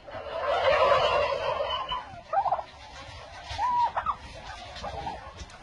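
A turkey gobbling: one long gobble lasting about two seconds, then a few short separate calls.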